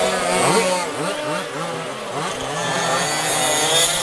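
Small two-stroke petrol engines of 1:5-scale RC rally cars revving up and down, the pitch rising and falling again and again with the throttle as the cars race past.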